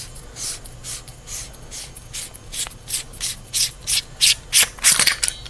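JetBeam T6 flashlight being unscrewed by hand to get at its 18650 batteries: a run of short scratchy rubbing strokes as the hands twist and regrip the knurled metal body, about three a second, getting louder toward the end.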